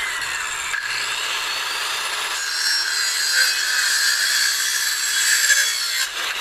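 A power saw cutting through wood lumber in one continuous cut, a bit louder from about the middle on.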